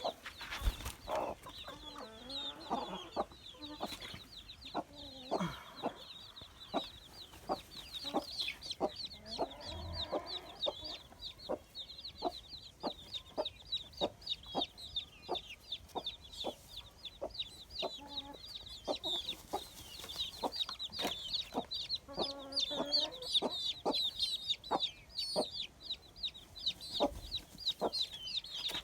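Chickens clucking in short, regular clucks about two a second, over a dense, unbroken run of rapid high-pitched chirps.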